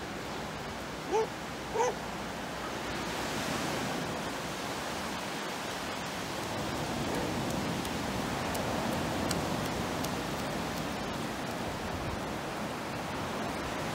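Sea surf breaking and washing up a sandy beach, a steady rushing that swells and eases as waves come in. A dog gives two short whines near the start.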